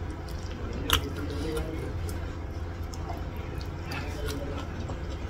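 Close-up wet chewing and squishy mouth sounds while eating a mouthful of curried cassava leaves with rice, with small lip clicks and one sharp smack about a second in.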